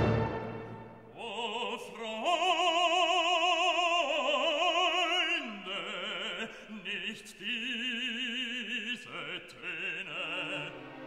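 Background music: a loud orchestral passage dies away at the start, then an operatic voice holds long notes with wide vibrato.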